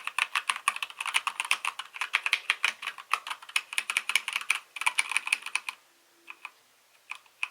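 Typing on a Keychron K2 mechanical keyboard: a fast, loud run of keystrokes that stops about six seconds in, leaving just a couple of single key presses near the end.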